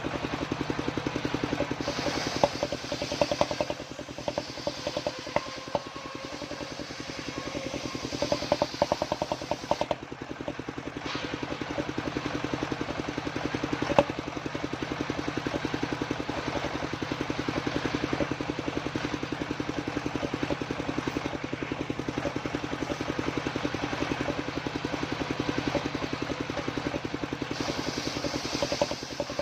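A home-built circular saw rig runs steadily on an engine with an even, rapid pulsing. Its blade cuts through waru timber, adding a brighter, hissing cutting noise from about 2 s to 10 s and again near the end.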